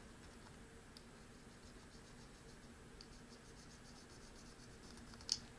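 Very faint light scratching and ticking of a small pointed tool scraping a fitness tracker's charging contacts clean, with one sharper click near the end, over a faint steady hum.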